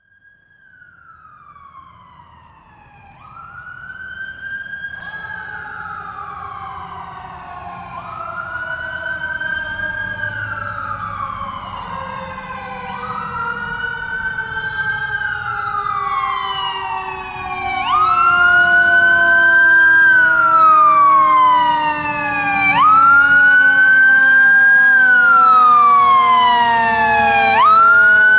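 Fire engine siren on a slow wail, rising and falling about every five seconds, with a second siren tone sinking slowly in pitch underneath. It grows steadily louder as the engine approaches, and is loudest in the last ten seconds.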